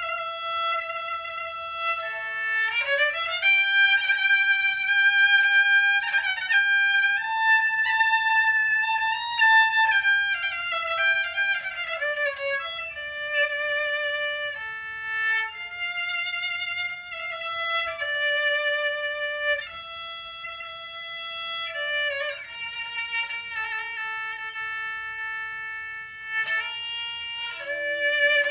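A violin plays a melody with vibrato, sliding between some notes, over faint low accompaniment.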